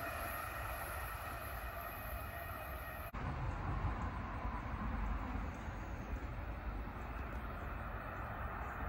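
Passenger train running away down the track, its rumble carrying a few steady high tones. After a sudden cut about three seconds in, a steady low rumble as another train approaches from far down the line.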